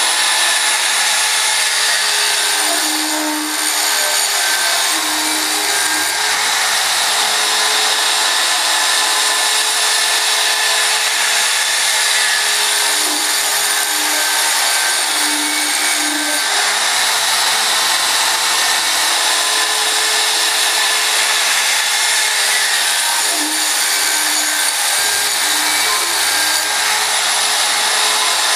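A JCUT-1530X CNC router's toothed saw-blade attachment running steadily, cutting a white board into strips as the gantry moves.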